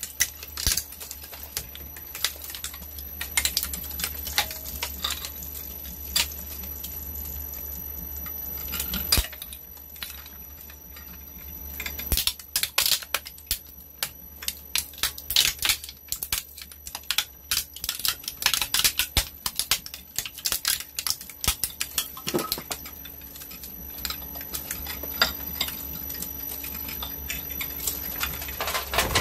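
Twin-shaft shredder running with a steady motor hum, its hook-shaped steel cutters cracking and snapping hard plastic from a yellow plastic toy in rapid, irregular clicks.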